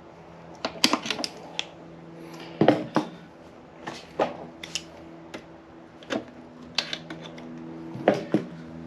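Irregular sharp metal clicks and taps of a tool working inside an aluminium transmission case while the bearing lock ring is spread open, over a faint steady hum.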